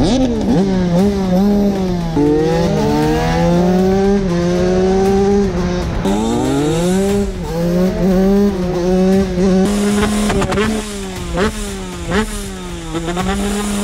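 TM SMR 125 two-stroke single-cylinder engine revving hard under acceleration, its pitch climbing and dropping sharply at each upshift, again and again. Near the end it comes off the throttle, the pitch falls, and the exhaust gives several sharp pops.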